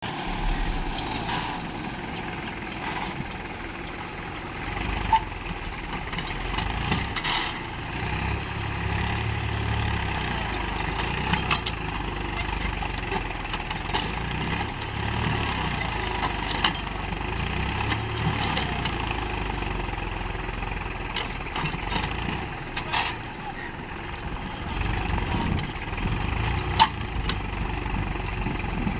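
Swaraj 735 FE tractor's diesel engine labouring under heavy load as it drags a loaded sand trailer bogged in deep sand, its rumble swelling and easing every few seconds. A few sharp knocks stand out over the engine.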